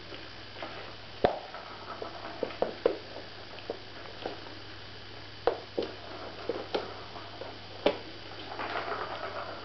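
British shorthair kittens' paws hitting and scrabbling on a wooden floor as they pounce at a wand toy: irregular sharp taps and thumps, two of them loud, with a rustling stretch near the end.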